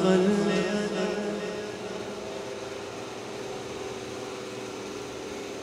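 A held chanted note of an Urdu devotional salam fades out over the first second and a half. A steady low hum then fills the pause between sung lines.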